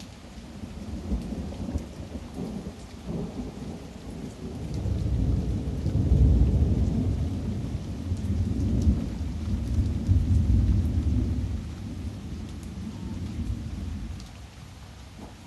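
A long roll of thunder over steady rain: the low rumble builds over the first few seconds, is loudest through the middle, and fades away near the end.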